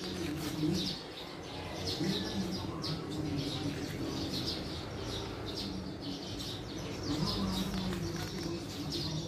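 Small birds chirping busily and without pause, a quick run of short, high notes, with a few brief low notes coming in now and then.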